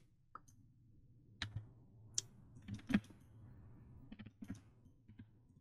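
Faint, irregular clicks and taps of a computer keyboard and mouse being worked while an object is moved in 3D software, a dozen or so scattered single clicks.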